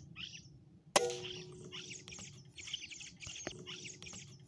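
A PCP air rifle shot about a second in: a sharp crack with a short metallic ring, the loudest sound. Small birds chirp in quick repeated calls throughout, and a fainter click with the same ring comes a couple of seconds after the shot.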